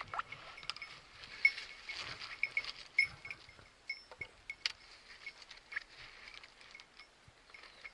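Dry sunflower stalks and leaves rustling as someone moves through them, with short, high clinks repeating every fraction of a second and a few sharper clicks.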